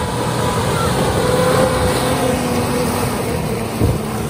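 Off-road 4x4's engine working hard under load as it ploughs through deep mud, tyres churning and throwing mud, with a short knock a little before the end.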